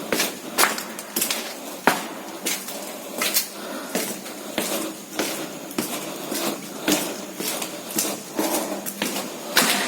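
Footsteps on a hard floor at a steady walking pace, a sharp step about every half second or so.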